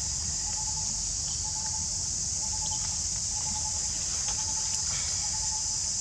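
Insects droning steadily at a high pitch, with a fainter lower note repeating on and off beneath the drone.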